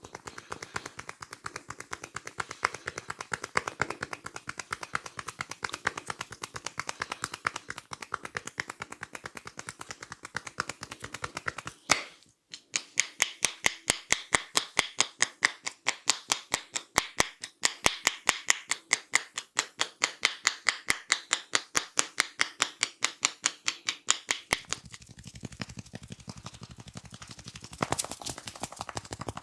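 A barber's hands tapping and slapping rhythmically on a head during a head massage, several sharp claps a second. The claps grow louder and more evenly spaced about halfway through, then turn softer and quicker near the end.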